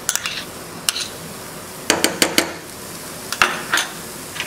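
A metal spoon clinking and scraping against a bowl and cooking pan as ghee is spooned onto mashed potato: a few single clicks, then a quick run of clinks about two seconds in and again about three and a half seconds in, over a steady low hiss.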